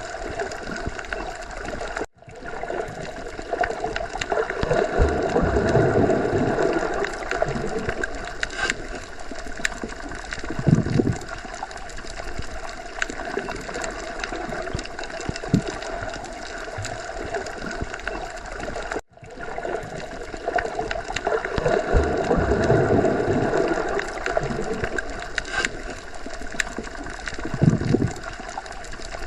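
Underwater ocean ambience: a muffled, steady rush of water with gurgling that swells and eases. It cuts out abruptly for an instant twice, where the recording loops.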